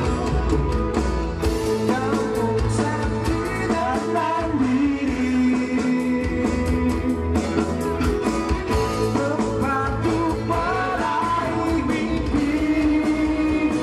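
Live band playing a rock-style song, with electric bass guitar and sung vocals over it.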